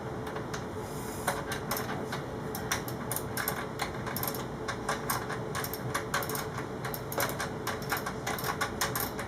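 Ratchet wrench clicking in quick uneven runs while turning the chain adjuster bolt to set the rear wheel's position.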